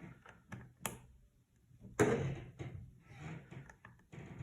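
Hard plastic clicks and knocks from pushing the nail drill handpiece's cord plug into the control box socket, a sharp knock about two seconds in; the plug is not seating easily.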